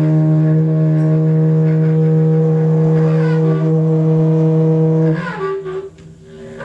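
Conch shell blown in one long, loud, steady low note, rich in overtones, that stops suddenly about five seconds in. A softer, higher wavering note goes on after it.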